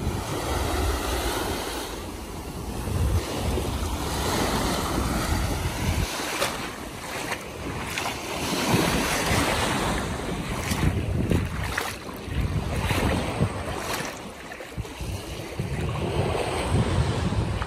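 Small Baltic Sea waves washing in over sand at the shoreline, a continuous rushing wash that swells and eases, with wind buffeting the microphone in uneven gusts.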